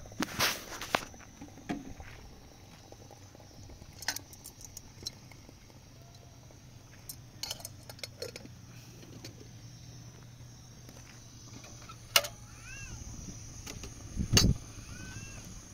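Scattered clinks and knocks of a soot-blackened metal kettle and a small metal teapot being handled and set down, with a sharp knock about twelve seconds in and a louder thud near the end, over a low steady hum.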